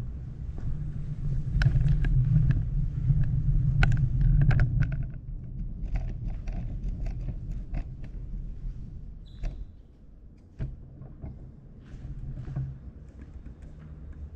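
Footsteps and small knocks on a hard floor as a person walks away from a microphone, with a loud low rumble and sharp knocks in the first five seconds, then scattered quieter taps.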